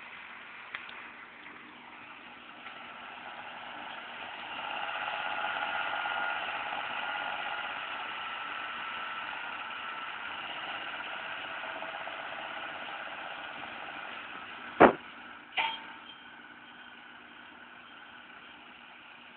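John Deere 6830 tractor running under load as it pulls a McHale Fusion 2 round baler-wrapper along the swath. It grows louder about four seconds in as it comes closer, holding several steady whining tones. Near the end there are two sharp knocks less than a second apart.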